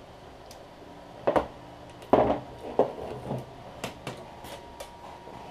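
Hands handling the parts of a laptop battery pack on a workbench: a string of uneven clicks and knocks of plastic and tools, the loudest about two seconds in.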